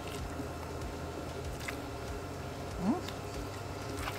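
Steady low hum of a restaurant dining room, with faint ticks of people eating from metal trays. A short rising sound just under three seconds in is the loudest moment.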